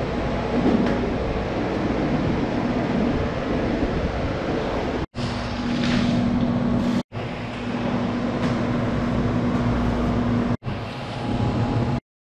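Electric fan running: a steady drone with a low hum, cut off abruptly three times for an instant.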